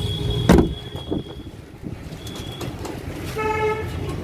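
A single heavy thump about half a second in, then a short vehicle horn toot near the end, over steady low traffic noise.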